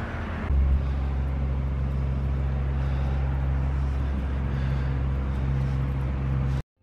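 Steady low outdoor rumble that cuts off abruptly near the end.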